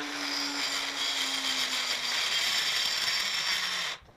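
Small power tool running steadily as it cuts away metal from a door's strike plate to ease the lock's bolt. Its motor note sinks slowly, then the tool stops abruptly near the end.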